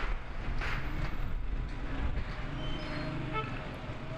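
Heavy engine running with a steady low rumble, amid street noise and a few faint short tones.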